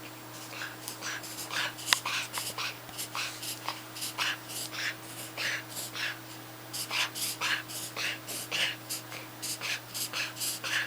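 Small puppy's rapid, repeated noisy breaths, about two to three a second with a brief pause partway through, in a paroxysmal episode that the owner is unsure is a reverse sneeze or a cough; she has been coughing for over a month since her spay. A single sharp click about two seconds in.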